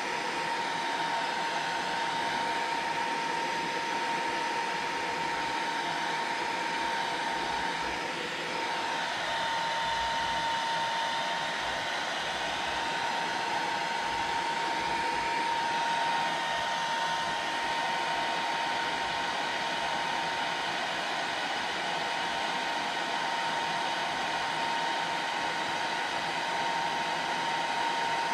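Electric heat gun running steadily, blowing hot air to dry wet texture paint on a foam column: an even rush of air with a steady whine on top.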